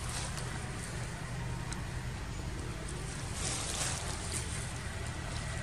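Steady low outdoor rumble with a faint hum underneath, and a short louder hiss about three and a half seconds in.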